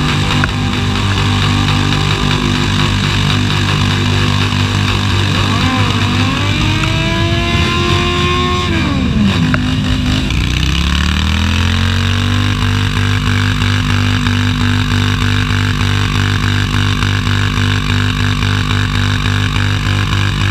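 V-twin cruiser motorcycles revving hard during burnouts, engines held at high revs with the rear tyres spinning. The revs climb and drop about halfway through, then climb again and hold steady.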